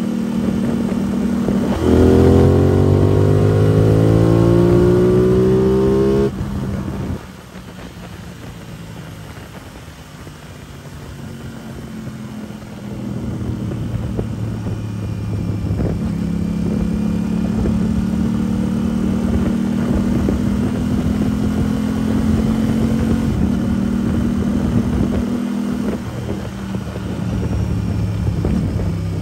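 Aprilia RS 660's parallel-twin engine through a cheap aftermarket exhaust while riding. About two seconds in it accelerates, rising steadily in pitch for about four seconds, then the throttle snaps shut. After a quieter spell it runs at steady revs at cruising speed, with a brief dip near the end.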